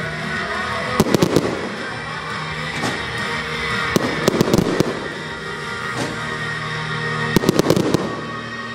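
Aerial fireworks bursting in three quick clusters of sharp bangs, about a second in, near the middle and near the end, over continuous music.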